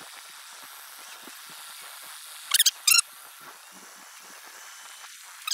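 Two short, sharp, high-pitched squeaks about half a second apart, over a steady faint hiss.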